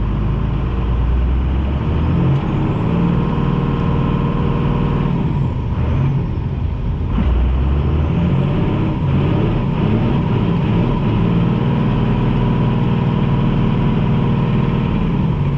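Turbo-diesel 5.9 12-valve Cummins pickup engine pulling under throttle, building twice with a rising turbo whistle, as the rear tires slip for traction in the snow.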